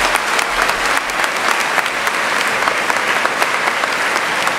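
Audience applauding: many hands clapping together in a steady, dense applause.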